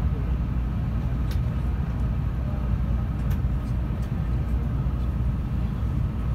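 Steady low rumble and hum inside a stationary 700 series Rail Star Shinkansen car, with a faint steady high whine and a couple of faint ticks.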